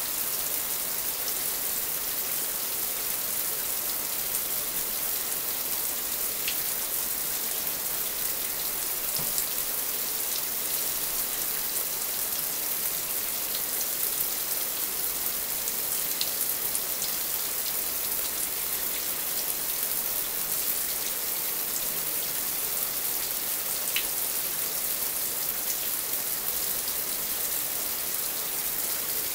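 Shower running: a steady hiss of water spray falling in a shower stall.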